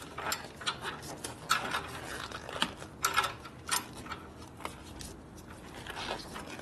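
Irregular metallic clicks and clinks of hand tools and small metal parts being handled during work on a brake line fitting.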